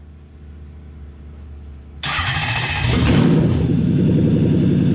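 Toyota 1UZ-FE quad-cam V8 cranked by the starter about two seconds in, catching almost at once and settling into a steady, loud idle. It is the first start on a newly wired Link ECU Monsoon harness.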